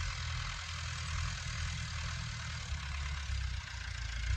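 Massey Ferguson 290 tractor's diesel engine running steadily with a low hum.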